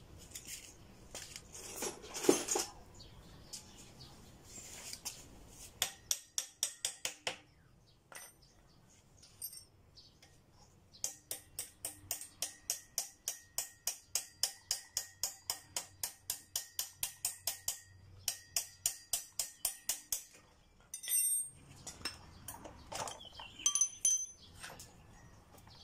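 Runs of sharp metallic clicks from tools working the front wheel axle of a motorcycle loose so the wheel can come off. A quick run comes about six seconds in, then a longer, evenly spaced run of about three clicks a second with a faint ringing tone. Louder clatters come about two seconds in and near the end.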